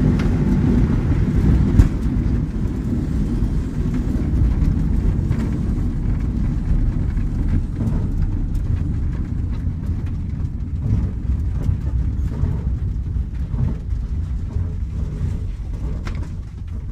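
Glider rolling over a grass airfield: a low rumble of the landing wheel and airframe on the rough ground with rushing air, slowly easing off as it slows. A sharp knock about two seconds in.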